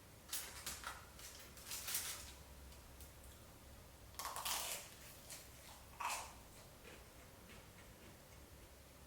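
Handling noises during food preparation: four brief clusters of rustling and clatter over a faint steady hum, the loudest a little after four seconds in.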